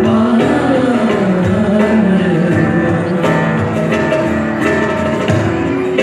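A live acoustic band plays strummed acoustic guitars while a man sings the melody over them.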